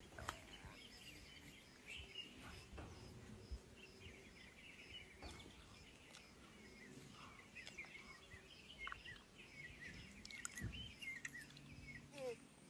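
Faint birds chirping, with a high note repeating steadily about three times a second and a low rumble underneath.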